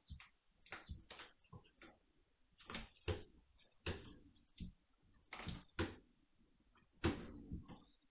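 Irregular knocks, clicks and clatter from Magyar Vizsla puppies moving and playing around their pen, with two louder knocks about three and seven seconds in. It sounds thin, as it does through a security camera's microphone.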